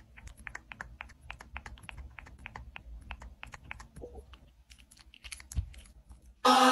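A sleeping puppy sucking and chewing on a rubber pacifier, making soft, quick, irregular wet clicks, several a second, with a low thump about five and a half seconds in. Music starts loudly near the end.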